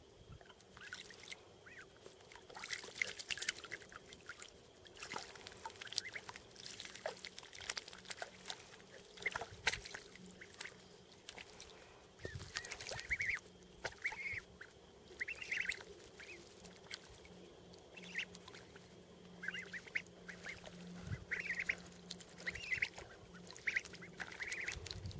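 Young ducks dabbling and splashing in shallow water, with short high calls repeated about once a second through the second half.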